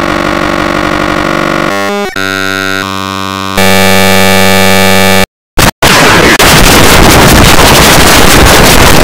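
Loud, digitally distorted effects audio: stacks of steady synthetic tones that jump to new pitches several times in the first few seconds, cut out twice briefly about five and a half seconds in, then give way to harsh, dense noise.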